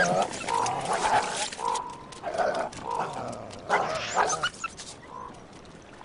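Coyotes growling and snarling at one another over a carcass, a string of short rough growls that fade out near the end.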